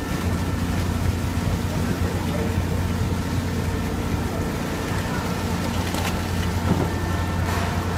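Fishing boat's engine idling with a steady low hum. A couple of knocks come near the end.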